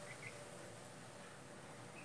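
Quiet background hiss with a few faint, short, high chirps, two about a quarter second in and more near the end.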